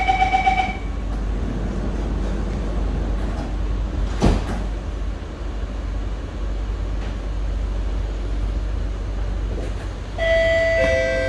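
Inside a C151B metro train: its beeping door-closing chime ends under a second in, a single thump follows about four seconds in, and the car's steady low running rumble carries on throughout. Near the end, a two-note falling chime sounds ahead of the next-station announcement.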